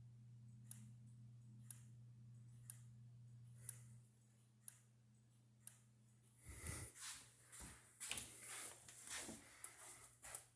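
Near silence: a faint low hum with a soft click about once a second. The hum stops about four seconds in. From about six seconds on come irregular rustling and handling noises.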